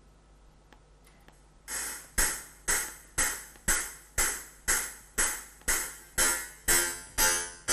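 Karplus-Strong plucked-string physical model running in a Max gen~ patch, playing a steady run of synthesized plucked notes about two a second, starting a little under two seconds in. Each note starts sharply and dies away quickly.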